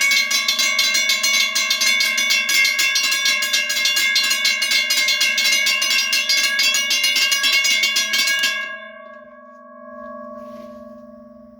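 Three WRRS railroad crossing bells ringing at the same time, their rapid strikes overlapping into one dense clanging. About nine seconds in the striking stops and the bells' tones fade away slowly.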